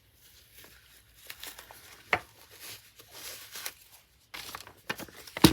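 Packaging and fabric being handled, rustling and crinkling with scattered light clicks, a sharp tap about two seconds in and a louder click near the end.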